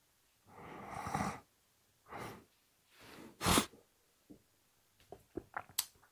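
A person's breath sounds on waking: a long breathy exhale, a shorter breath, then one sharp, loud burst of breath about three and a half seconds in. A few faint quick clicks follow near the end.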